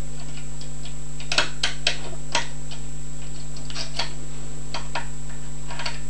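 Light, irregular metallic clicks and ticks of bike-spoke wire picks working the levers inside a Belfry lever padlock, with a cluster of sharper clicks about a second and a half in, over a steady low hum.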